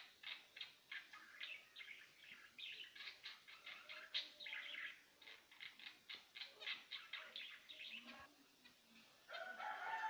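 Small caged finches chirping: quick, high, short calls several a second, with a brief lull about eight seconds in and a longer, held call near the end.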